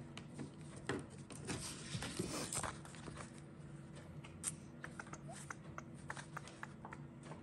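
Quiet, scattered small clicks and soft rustles of paper and stationery being handled while planning in a paper planner.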